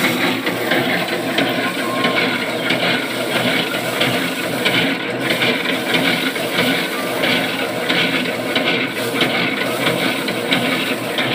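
Engine-driven paddy thresher running steadily: the spinning threshing drum rattles and whirs as rice sheaves are held against it to strip the grain, over the continuous run of the small diesel 'chalo' engine that drives it.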